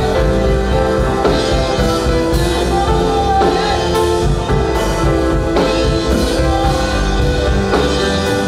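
Live church worship band playing an instrumental passage with drum kit, guitar and sustained keyboard chords, with regular drum and cymbal hits.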